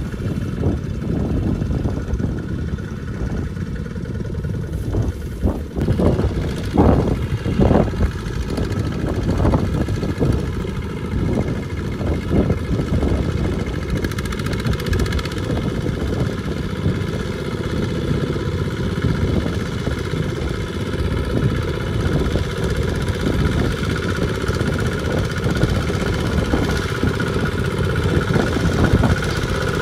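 Single-cylinder diesel engine of a two-wheel walking tractor running steadily under load, pulling a trailer through deep mud. Several loud knocks and thuds come about six to ten seconds in.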